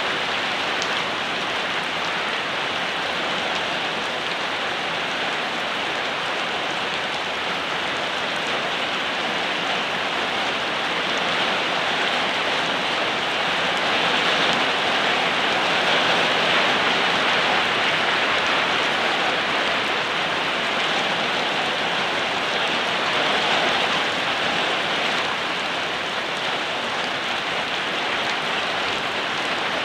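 Steady rain falling, an even hiss of many drops, swelling slightly in the middle.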